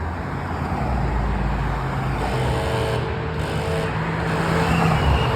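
Renault Duster driving over a rough track, heard from inside the cabin: engine running under steady road and tyre noise. A steady whine joins about two seconds in.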